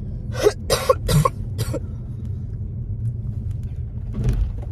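A person coughing four times in quick succession, over the steady low rumble of a car.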